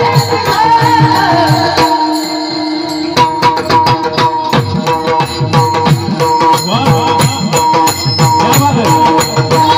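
Marathi devotional bhajan music: a singer holds and ornaments a long note over sustained accompanying tones. The percussion drops away briefly, then about three seconds in a full drum beat comes back in, with low bending drum strokes and quick bright jingling percussion.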